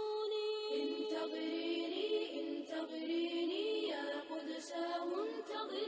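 Outro music: an unaccompanied nasheed-style vocal chant, several voices in layers holding long, wavering notes.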